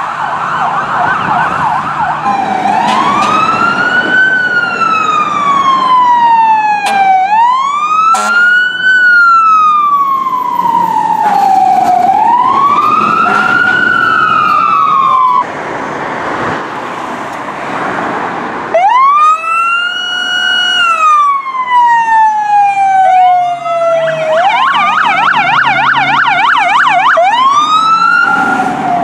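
Fire truck's electronic siren on a slow wail, rising and falling about every five seconds, switching to a rapid yelp at the start and again near the end. For a few seconds past the middle the siren drops out, leaving only engine and road noise, then the wail starts up again.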